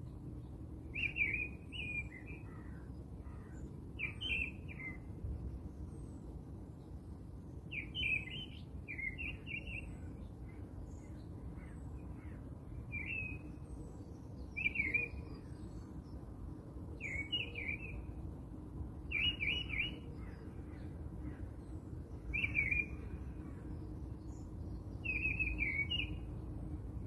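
Small birds chirping in short, repeated phrases every two to three seconds over a steady low background noise.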